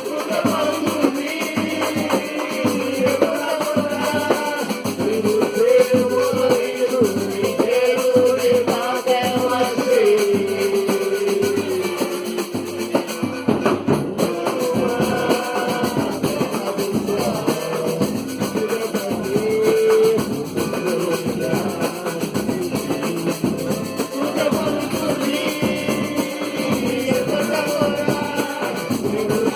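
A band playing music with a drum kit and guitar and a melody line that is likely sung, over a steady beat.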